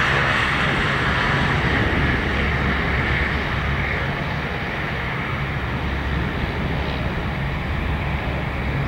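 Jet noise from a Cessna Citation CJ3's twin Williams FJ44 turbofans as it rolls out on the runway after landing: a steady rush that slowly fades as the jet moves away.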